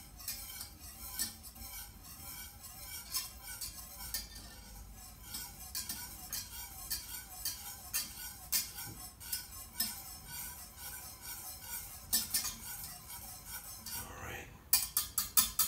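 Wire whisk beating a liquid gelatin mix in a saucepan, its wires clicking and scraping against the pot in a quick, even rhythm. Near the end the whisking becomes faster and louder.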